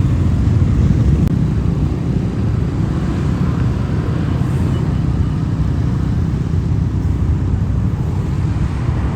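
Motor vehicle engine running steadily, a loud, even low rumble.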